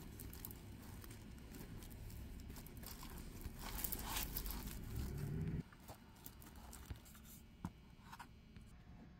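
Faint rustling and crinkling of satin and organza with light clicks from beaded wire picks as a flower bouquet is handled and turned. It is louder a few seconds in, and a low rumble under it cuts off suddenly a little past halfway.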